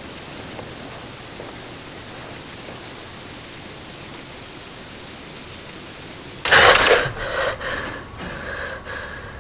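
A steady, even hiss like rain, broken about six and a half seconds in by a sudden loud noise lasting about half a second, after which fainter uneven sounds with a steady high hum continue.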